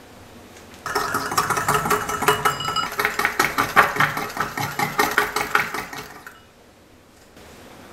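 Small wire whisk beating rapidly against the sides of a small glass bowl, dissolving instant coffee powder in hot water: quick clinking strokes, about five a second. The whisking starts about a second in and stops after about five seconds.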